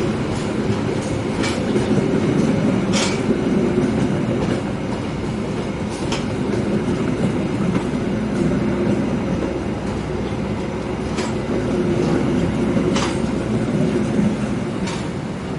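Train running along the rails: a steady rumble from the wheels and carriages, with a handful of sharp, irregularly spaced clacks as wheels cross rail joints. No horn sounds.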